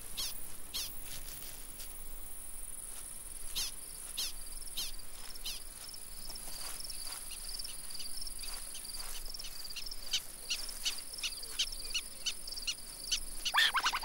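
A steady high insect buzz from the grass under a long run of short, sharp chirping alarm calls. The calls repeat about every half second and come faster in the second half, as animals of the prairie dog town call against a prowling coyote.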